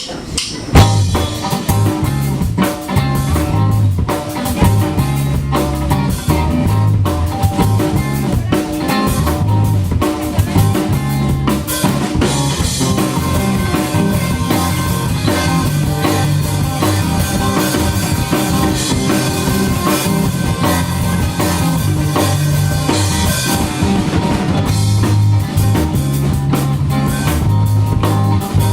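Live band playing a loud instrumental passage with no vocals: drum kit keeping a steady beat, with guitar and bass.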